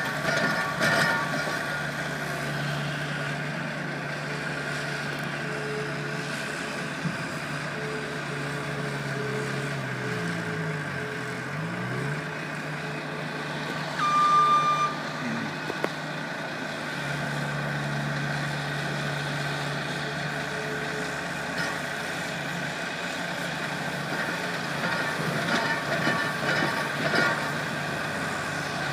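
Diesel engines of a skid-steer loader and a dump truck running steadily during snow loading, with an engine's pitch dipping and rising again about ten seconds in. A short loud beep sounds about halfway through.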